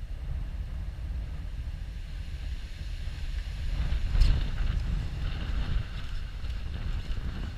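Wind buffeting the GoPro microphone in a gusty low rumble, with a single sharp knock or splash about four seconds in.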